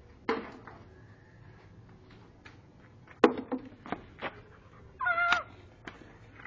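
A pet animal's cries: a short sharp cry about a third of a second in, several quick sharp yips or clicks around three to four seconds in, then one high, slightly rising drawn cry about half a second long near five seconds in.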